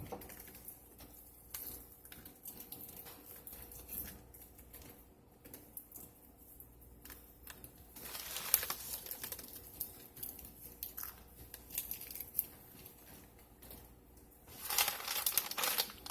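Crinkling and crackling as almonds are broken up into smaller pieces, in scattered bursts that are busiest about eight seconds in and again near the end.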